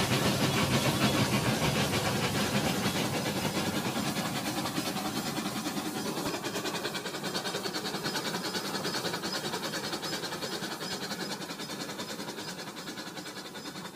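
Rail King toy train running along its plastic track: a steady, rapid clatter with a hiss, gradually fading over the stretch.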